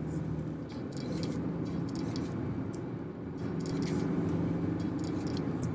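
Steady engine and road noise heard inside a moving car's cabin.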